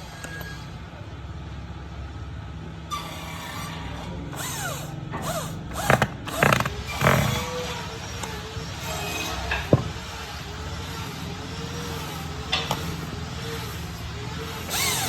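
Hand work on a wooden chair's corner brace: several sharp knocks of wood on wood, then a creaking scrape that repeats about every second.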